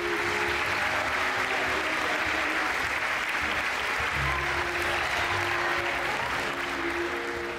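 Audience applauding a curtain call, a dense, steady clapping throughout. Faint sustained music tones come in underneath about halfway through.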